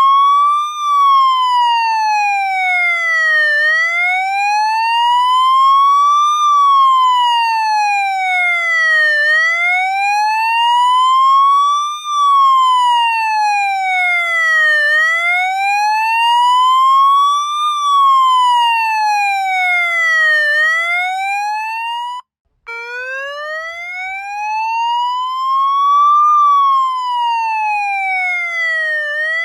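Police siren sounding a slow wail, its pitch rising and falling about every six seconds. About two-thirds of the way through it cuts out for a moment and starts again from the low note.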